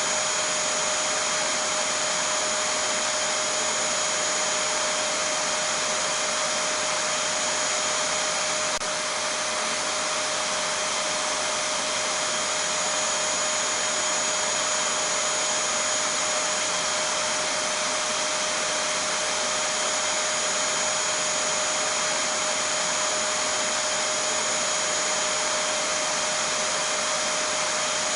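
Vacuum cleaner (hoover) running steadily: an even rushing noise with a constant whine on top, unchanging throughout.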